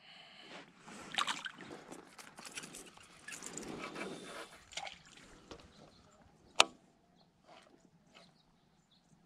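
Water sloshing and splashing beside a float tube as a bass is released by hand and the tube is moved, in irregular splashes that die away after a few seconds. A single sharp click comes about two-thirds of the way through.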